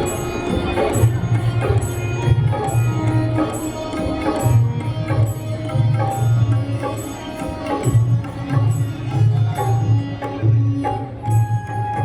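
Full band playing together in a sound check: drums with a steady beat and regular high cymbal ticks, a heavy bass line and sustained melodic notes.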